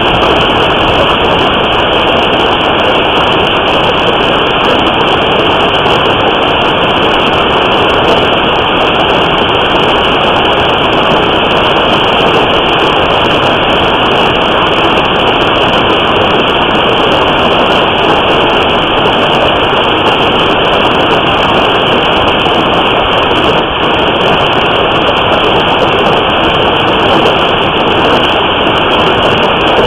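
Hailstorm: hail and heavy rain pounding the house and cars, picked up by a surveillance camera's microphone as a loud, dense, steady noise with no single hits standing out.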